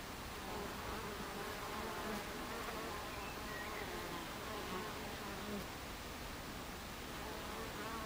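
Buckfast honeybees buzzing at the hive entrance as they fly in and out, a wavering hum that rises and falls in pitch as single bees pass close.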